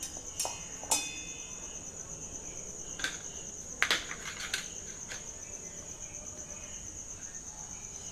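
Crickets chirping steadily in a high continuous trill, with a few sharp clicks and knocks of a small knife against a steel mixer jar and plate as ripe mango flesh is cut away, loudest about a second in and again about four seconds in.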